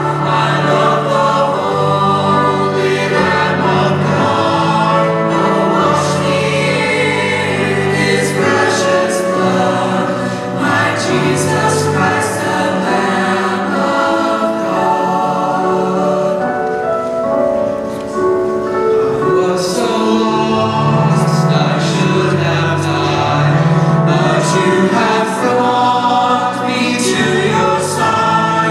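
Mixed-voice school choir of boys and girls singing a sacred choral piece in parts, with held chords that change every second or so.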